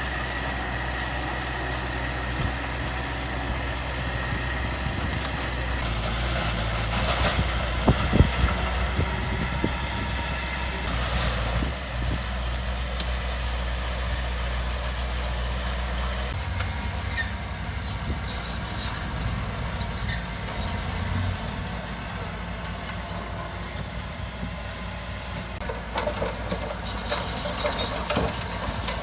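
Heavy diesel earthmoving machinery running steadily, its engine note shifting about halfway, with metallic clanks and knocks around eight seconds in and again near the end.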